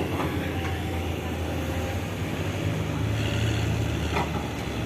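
Heavy diesel engines of coal dump trucks idling, a steady low hum. Two short knocks cut through it, one at the start and another about four seconds in.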